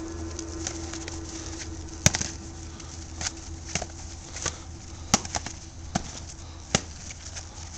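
Sharp knocks of a sparring stick and a Calimacil foam mace clashing and landing blows, about eight at irregular intervals; the first, about two seconds in, is the loudest. A steady low hum runs underneath and fades out near the end.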